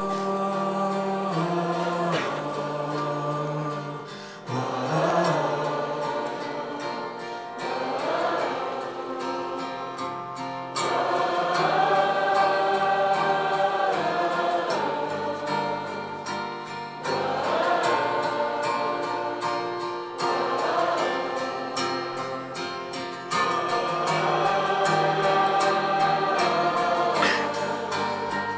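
Live Christian worship song: a band with acoustic guitar and keyboard backing singers, with many voices singing long held phrases together.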